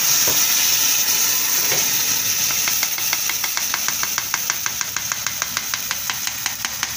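Guajillo chile sauce sizzling with a steady hiss as it pours through a plastic mesh strainer into a hot frying pan. About two and a half seconds in, quick regular scraping strokes begin as a utensil works the sauce through the sieve, roughly six or seven a second.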